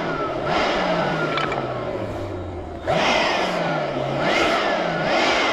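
An engine running loud, its pitch dropping away and then climbing again several times, with surges of louder noise as it picks up.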